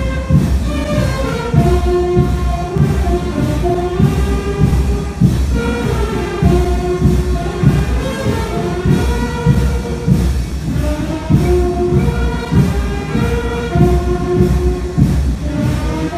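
Brass band playing a slow hymn to Saint Joseph: long held notes moving step by step over a steady beat.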